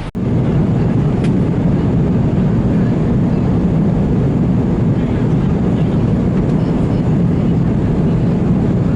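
Airbus A320 engines and airflow heard inside the passenger cabin: a steady, even roar that starts abruptly at a cut.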